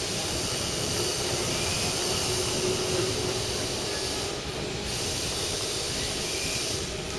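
Class 08 diesel shunter's engine running steadily as the locomotive shunts slowly in the yard, with a steady hiss over it.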